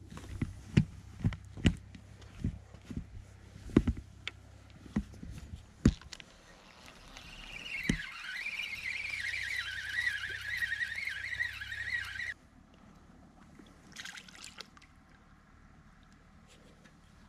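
A few sharp knocks of handling, then a Salmo Feeder Concept Pilot 7 spinning reel cranked for about five seconds, a whir that wavers in pitch with the turns of the handle and stops suddenly, as a bent feeder rod is reeled in.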